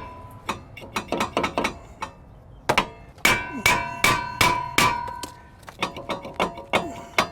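Hammer blows on a stuck brake rotor: a long series of sharp metal strikes, some in quick flurries, each ringing with a metallic tone, the heaviest about three to five seconds in. The rotor is jammed on the hub and will not come off.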